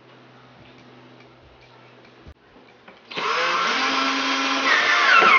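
Cordless drill/driver driving a screw into the MDF frame: after a few faint handling knocks, the motor starts about three seconds in with a steady whine that drops in pitch near the end as the screw draws tight and the motor slows under load.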